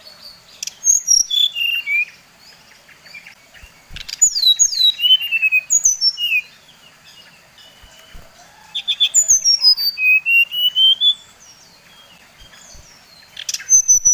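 An SRDC (sikatan rimba dada coklat, a jungle flycatcher kept as a songbird) singing: four bursts of quick whistled notes, most sliding down in pitch and one rising run, with short pauses between them.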